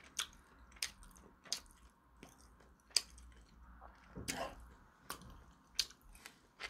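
A person chewing food close to the microphone: soft wet mouth smacks and clicks roughly once a second, with a longer, fuller chewing sound about four seconds in.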